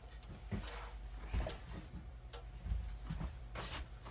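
Faint scattered clicks and knocks from a person shifting about at a desk, over a steady low hum.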